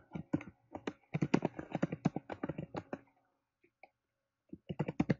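Typing on a computer keyboard: a quick run of keystrokes, a pause of about a second and a half, then another run of keystrokes near the end.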